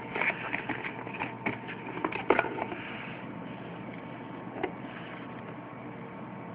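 Handling noise: a quick run of small clicks and rustles for the first few seconds, then one more click, over a steady hum.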